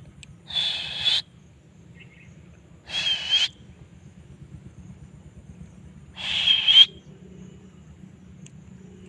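A parrot calling three times, each call a little over half a second long and a few seconds apart.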